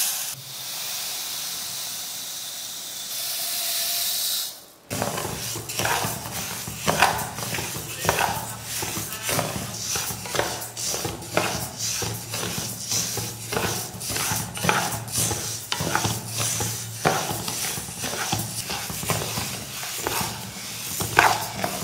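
Pearl millet grains poured into an aluminium kadai with a steady hiss, then, after a cut about five seconds in, a wooden spatula stirring and scraping the dry grains around the pan in repeated strokes, about one or two a second, as the millet dry-roasts.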